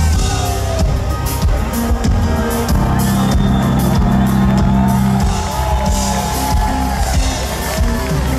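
Live pop-rock band playing amplified: bass guitar, drum kit, keyboards and percussion, with sung voices gliding over the top.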